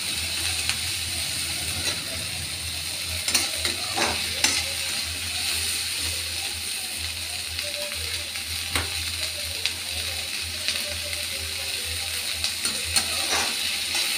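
Sliced onions sizzling in hot oil in a metal kadai, being sautéed to a light brown to cook off their rawness. A perforated metal slotted spoon stirs them, scraping and knocking against the pan a few times.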